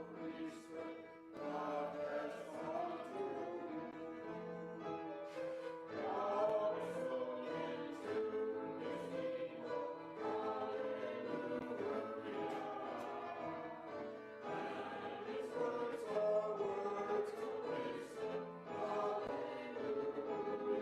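A choir singing a hymn: several voices in sustained, changing chords.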